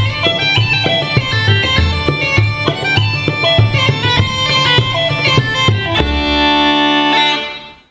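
Uilleann pipes and a bodhrán playing a reel in a steady beat. About six seconds in the drum stops and the pipes hold a final chord over their drones, which fades out at the end of the tune.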